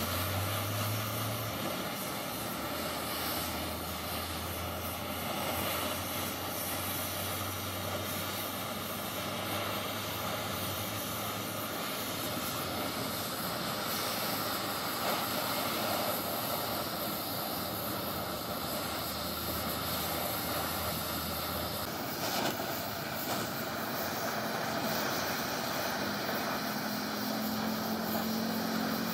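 Oxy-fuel gas torch flame hissing steadily as it heats a rusty steel bar toward red heat.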